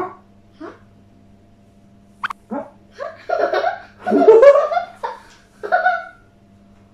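A child laughing in a run of short giggles, the loudest burst about four seconds in.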